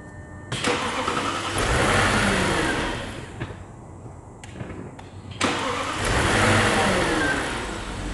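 Audi Q7's 4.2 V8 FSI engine being started twice: the starter cranks and the engine catches, swells in sound and then falls away again each time. It runs abnormally, as if compression were weak, a sign of the misfire the car came in with.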